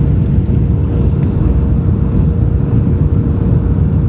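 Cabin noise in a Boeing 737-500 beside the wing on approach with flaps extended: a steady, loud rush of engine and airflow with a constant hum held through it.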